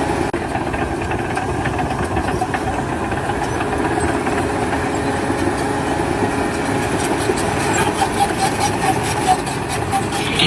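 A heavy vehicle's engine running steadily, with a dense fast clatter.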